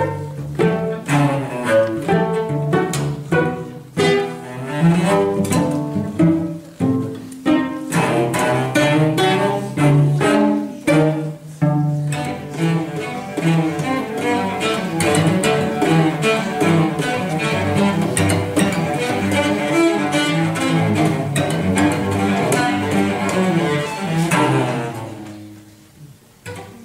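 Four cellos playing together with bows: sharp, detached notes for the first dozen seconds, then a busier running passage that dies away about two seconds before the end.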